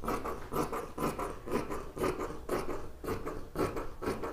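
Fabric scissors cutting through cloth in a steady series of snips, about two cuts a second.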